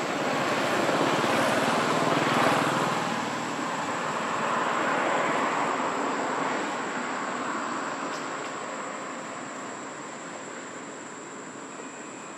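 A broad rushing noise that swells over the first few seconds and then slowly fades, with a thin, steady high-pitched whine throughout.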